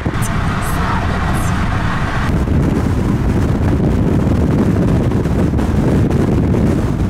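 Wind buffeting the microphone over the steady rumble of a car driving at speed. A higher hiss drops away about two seconds in.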